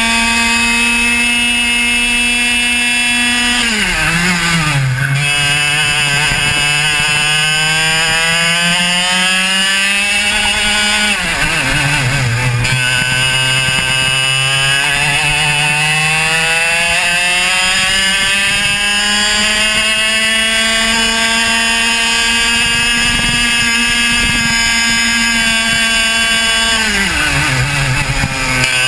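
Two-stroke racing kart engine at close range, held at high revs on the straights; its note drops sharply three times as the kart slows into corners, about four, eleven and twenty-seven seconds in, then climbs steadily back up as it accelerates out.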